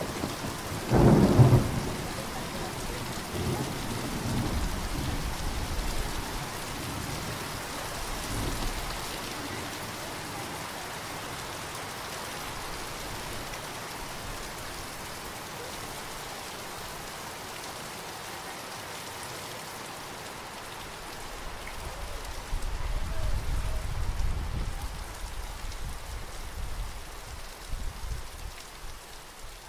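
Thunderstorm: steady rain falling, with a sharp thunderclap about a second in that rolls on as rumbling for several seconds, and a second long, low roll of thunder near the end.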